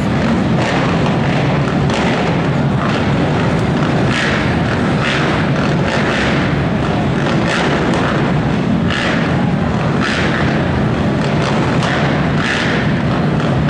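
Several racing ATV engines running together at the start line, a loud steady din with frequent short throttle blips, echoing in an indoor arena.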